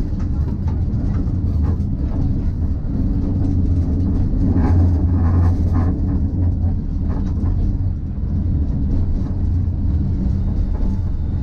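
Hiroshima Electric Railway type 1000 tram running along street track, heard from inside the cab area: a steady low rumble of motors and wheels on rail with scattered clicks and rattles. It grows louder for a couple of seconds about halfway through.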